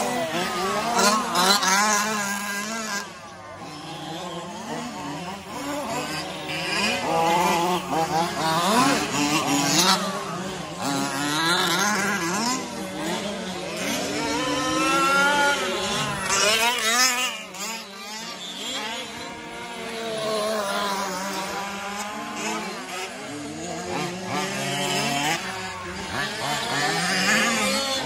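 Several 4WD remote-control race trucks' motors, rising and falling in pitch over and over as the drivers work the throttles, with a number of trucks sounding at once.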